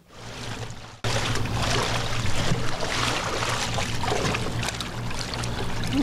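Pool water sloshing and splashing as two people wade through a swimming pool, over a steady low hum. It starts abruptly about a second in.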